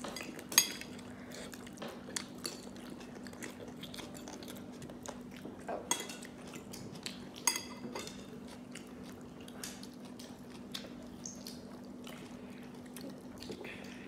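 A child eating fried chicken with his fingers: chewing and smacking with many sharp clicks, the loudest about half a second in. A steady low hum runs underneath.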